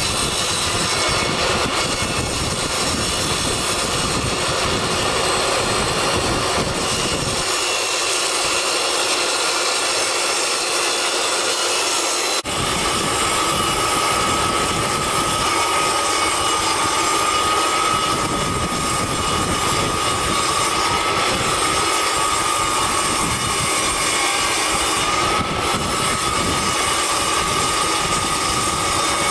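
DeWalt jobsite table saw running loud and steady while ripping long wooden cladding boards. About twelve seconds in the sound changes abruptly, and a steady high whine carries on from there.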